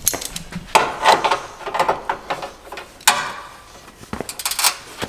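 Irregular clanks, clicks and scrapes of hand tools working on metal car parts, with a quick run of clicks about four seconds in.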